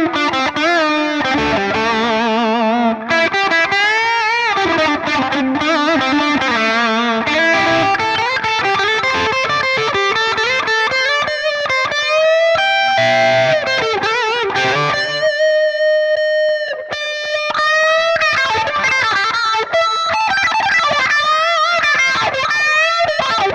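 Harley Benton SC-DLX electric guitar on its neck pickup, overdriven through a Hotone Ampero One's Mesa Boogie Mark IIC+ amp preset, playing lead lines with string bends and wide vibrato. About two-thirds of the way through it holds one long sustained note.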